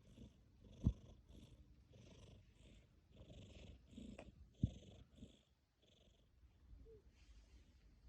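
Domestic cat purring softly in a rhythmic in-and-out pulse, about two pulses a second, with a brief lull past the middle. Two sharp knocks cut through, about a second in and again about four and a half seconds in.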